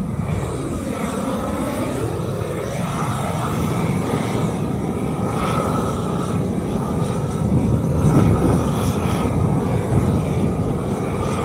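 Heavy engine-driven machinery running steadily under load while shaving down an asphalt speed bump. Its pitch dips and comes back up a second or two in.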